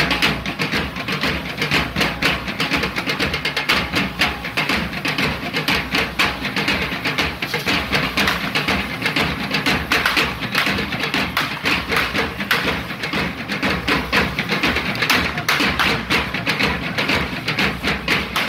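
Correfoc fireworks, the devils' hand-held spark-spraying carretilles, hissing and crackling without a break, with drumming underneath.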